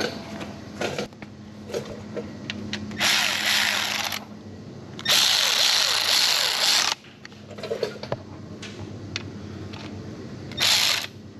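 Power tool run in three bursts: about a second, then about two seconds, then a short burst near the end, with light clicks and knocks between.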